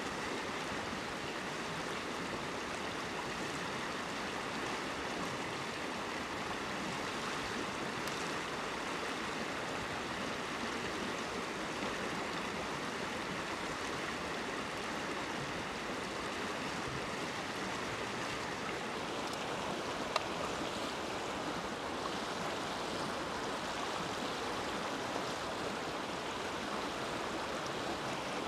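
Stream water rushing steadily, with one faint click about twenty seconds in.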